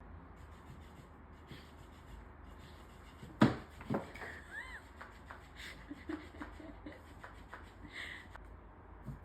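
Soft rustling and scattered light taps, with a sharp knock about three and a half seconds in and a weaker one half a second later.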